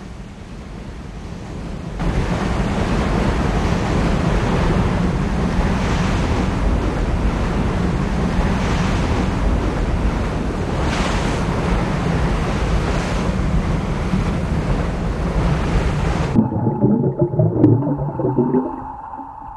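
Seawater surging and washing over a submersible's deck, a loud steady rush of waves that swells up over the first two seconds. About three-quarters of the way through it cuts off suddenly, leaving a steady hum and low bubbling.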